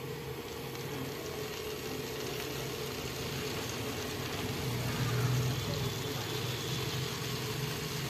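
Small battery-powered DC motor and fan of a homemade plastic-bottle vacuum cleaner running, a steady whine over a low hum that swells a little about five seconds in.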